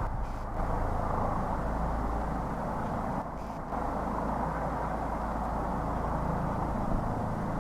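Helicopter running steadily: a continuous rumbling engine and rotor noise.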